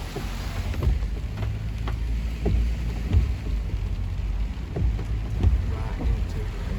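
Steady low rumble of a vehicle, heard from inside while driving, with scattered light ticks on top.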